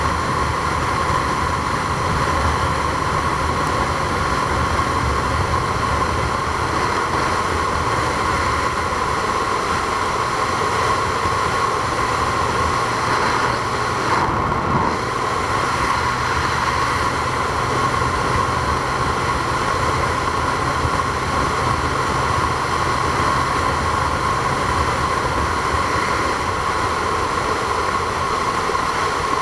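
Steady running noise of a vehicle: an unbroken drone with a constant high tone and a low hum.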